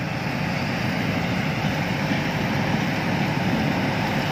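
Two tracked rice combine harvesters running steadily under load while harvesting, a dense, continuous engine and threshing-machinery noise that grows slightly louder.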